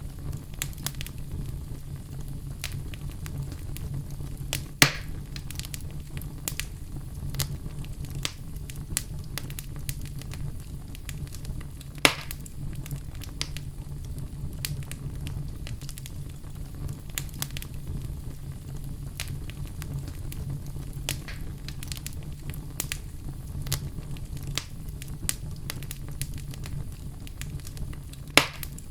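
Fireplace fire crackling: a steady low rumble of flames with constant small snaps and three louder pops, about five seconds in, about twelve seconds in, and near the end.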